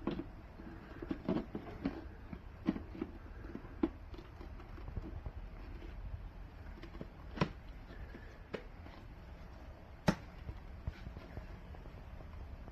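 Scattered light clicks and knocks, several close together in the first few seconds and single sharper ones about halfway through and near the end, like plastic parts being handled; no motor running.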